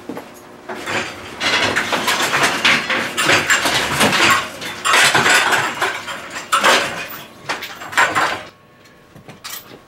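Dishes and cutlery clattering: a dense run of clinks and knocks from about a second in, dying down a second or so before the end.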